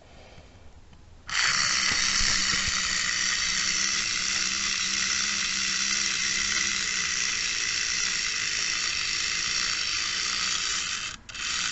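Clockwork motor of a wind-up Barbie toy record player whirring steadily as it plays, switched on about a second in. The whir briefly drops out near the end.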